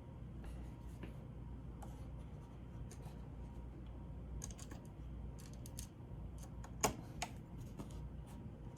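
Small clicks and taps of laptop parts being handled and fitted during reassembly, with one sharper click about seven seconds in, over a steady low hum.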